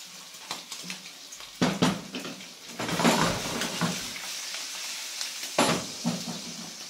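Diced guanciale sizzling in oil in an aluminium frying pan, with a few sharp metal knocks of pan and utensils, the loudest near two seconds and near the end. About three seconds in, the pan is lifted and shaken over the burner, and the sizzle swells.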